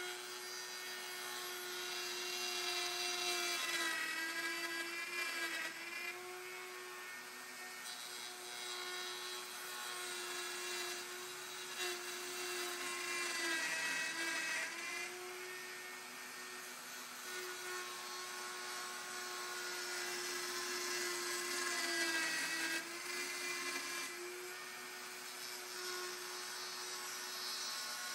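Router motor running steadily while its bit cuts dovetails in oak in a dovetail jig. Its pitch sags briefly about three times as the bit loads up in the hard wood.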